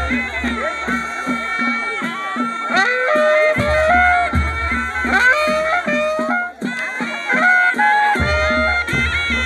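Panche baja, the traditional Nepali band: shehnai reed pipes play a wavering melody over sustained notes, with drum strokes about twice a second.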